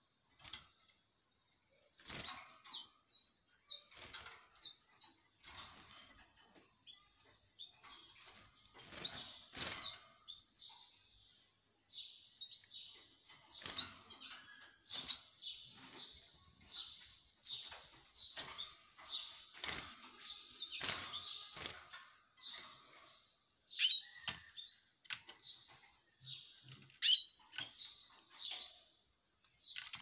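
Caged canaries chirping and twittering, with sharp clicks and wing flutters as they hop and flap about the wire cage. About halfway through, the twittering thickens into near-continuous song.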